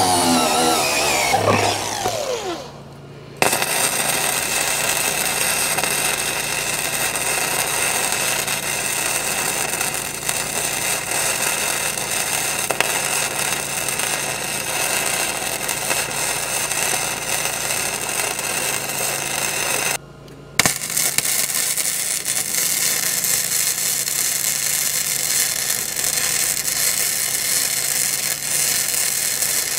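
An angle grinder runs and spins down over the first couple of seconds, its pitch falling. Then a Millermatic 211 runs flux-core wire with no shielding gas: a steady arc crackle and sizzle laying weld on a steel patch plate, broken by a short stop about 20 seconds in before the next bead.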